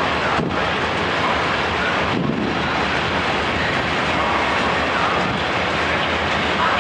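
Freight train of loaded open wagons rolling past on the far track, its wheels on the rails making a steady, even noise.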